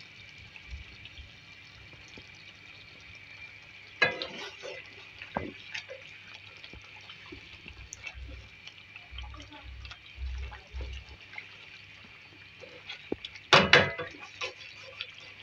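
Chicken curry gravy simmering in a pan with a steady bubbling hiss, while a wooden spatula stirs and scrapes through it with small clicks. Two sharp knocks of the spatula against the pan, about four seconds in and louder near the end.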